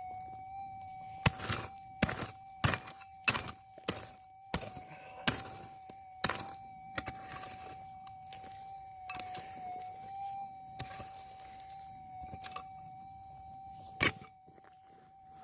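A digging tool repeatedly striking and scraping rocky ground, with sharp irregular clinks of stone and metal, thickest in the first half and with one loud strike near the end. Under it runs a steady high hum: the metal detector's threshold tone through its external speaker.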